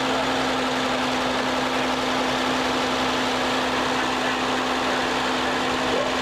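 Oliver 88's six-cylinder diesel engine running steadily, holding an even pitch with no changes in speed.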